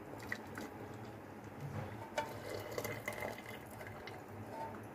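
Dark tea water poured from a steel pan through a steel mesh strainer into a pot, a faint trickle with a few light metal clicks of the pan against the strainer.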